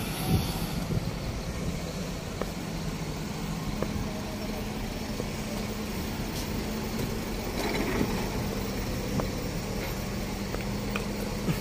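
A heavy machine's engine running steadily at idle, a constant low hum with a few faint ticks.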